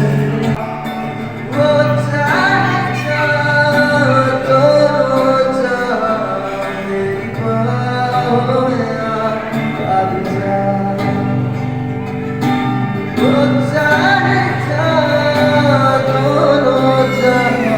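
A song: a singer holding long, gliding sung phrases over steady guitar accompaniment.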